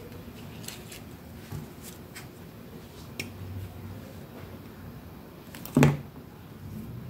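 Paper pieces handled on a cutting mat, with faint scattered clicks and rustles. A plastic glue bottle is set down on the mat with a single sharp knock near the end, the loudest sound.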